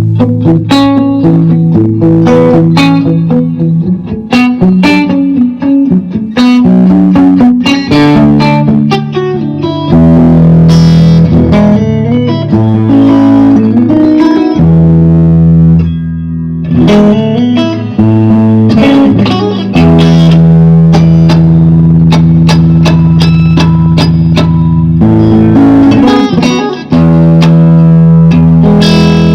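Electric guitar played through an Orange Super Crush combo amplifier: quick picked notes and riffs at first, then long held chords ringing out a few seconds at a time, with short breaks between them.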